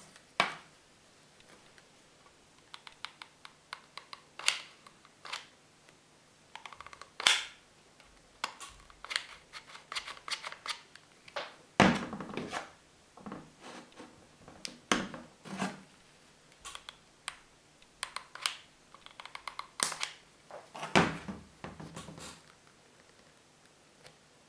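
Irregular small clicks, taps and rustles from working a hot glue gun and handling a latex-and-foam prop, with a few louder knocks spread through.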